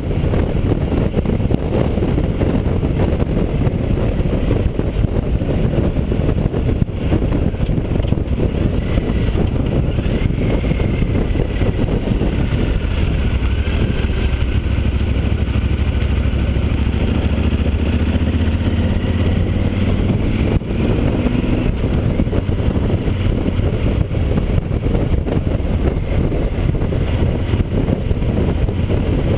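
Yamaha XT1200Z Super Ténéré's parallel-twin engine running as the motorcycle is ridden, mixed with steady rushing wind on the rider-mounted camera's microphone.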